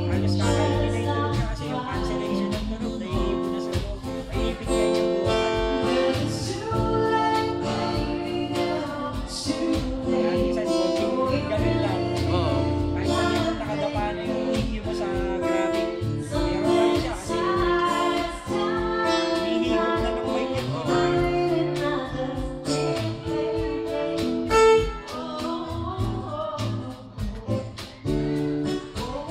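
Live acoustic band: a woman singing into a microphone over guitar and a steady percussion beat.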